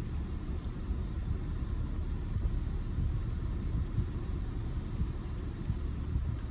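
Steady low rumble of a car heard from inside the cabin, with a few faint wet ticks as a dog laps from a small paper cup.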